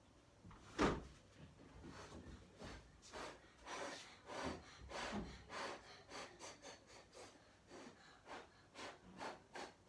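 A sharp click about a second in, then a run of short, irregular puffs of breath, about one or two a second, blown onto freshly painted nails to dry the polish.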